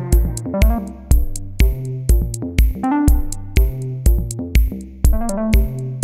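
Electronic background music: a drum-machine kick on a steady beat about two hits a second, under synthesizer melody lines.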